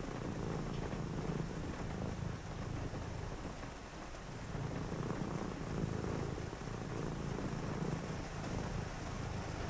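Tabby cat purring steadily, a low continuous rumble that eases slightly about four seconds in.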